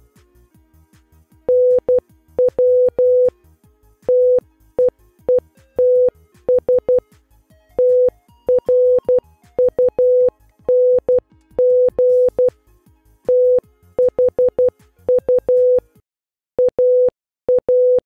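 Morse code message sent as a steady single-pitched beep keyed on and off in short dots and longer dashes, starting about a second and a half in. Faint electronic background music plays under it and stops about two seconds before the end.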